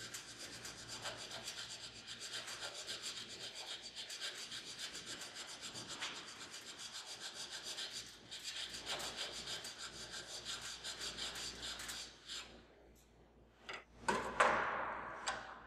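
Fine-tooth hand file draw filing a steel part held in a bench vise: a steady run of rapid, even rasping strokes, which stops about twelve seconds in. A few knocks and a short scrape follow near the end.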